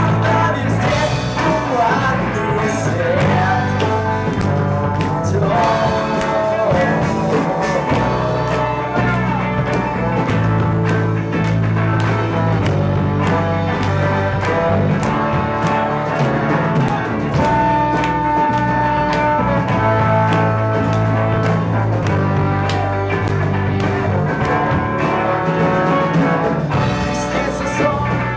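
A rock band playing live, with drums keeping a steady beat under a held, sliding melody line.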